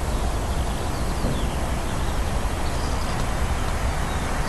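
Intercity train approaching on the electrified main line: a steady rumble of wheels on rail, with birds chirping faintly.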